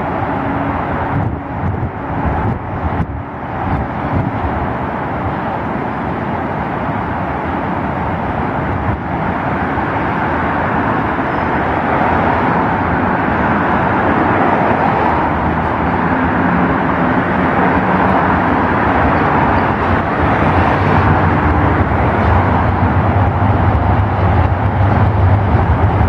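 Class 399 tram-train running toward and past on its track, its low motor and running rumble growing louder over the last several seconds. Underneath is a steady wash of road traffic noise from the viaduct overhead.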